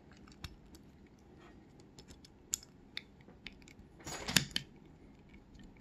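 Small metallic clicks and taps as a small stainless pin tumbler lock cylinder is picked up and handled, with a louder scrape about four seconds in as a screwdriver bit is set into a screw on the back of the lock.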